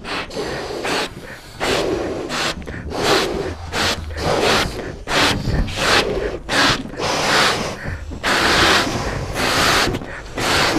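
Three people blowing up rubber balloons by mouth: a string of hard breaths, short inhales between longer blows into the balloons, with the air hissing.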